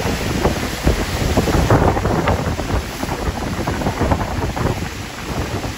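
Storm surf crashing and churning against a rocky shore, with strong tropical-storm wind gusting and buffeting the microphone. The surge is loudest about two seconds in.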